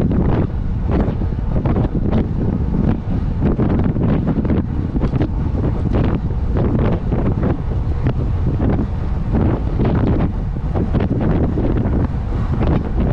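Wind blowing across the microphone of a road cyclist riding at about 35–38 km/h: loud, uneven wind noise with frequent irregular gusts.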